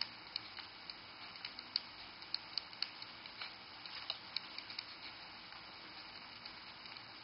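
Faint, irregular taps and scratches of handwriting on a phone touchscreen, over a steady hiss.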